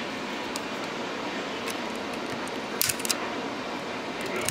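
A few small clicks and ticks of a hobby knife blade prying under the snowplow on a model locomotive's pilot, over a steady hiss of room noise; the loudest cluster of clicks comes about three seconds in.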